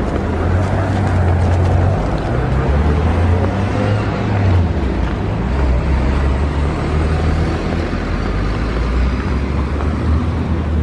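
Road traffic on a busy city road: a steady noise of vehicle engines and tyres, with a low engine hum that shifts in pitch a few times.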